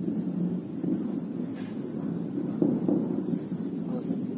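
Distant low rumble of an Ariane 5 rocket's launch, crackly and uneven, arriving from about 25 km away. A steady high-pitched trill runs over it.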